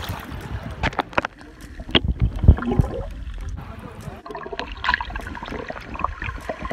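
Seawater splashing and gurgling around a phone as it is dunked at and below the surface, with muffled underwater bubbling. Irregular sharp splashes and thumps of water against the microphone, the loudest about two and a half seconds in.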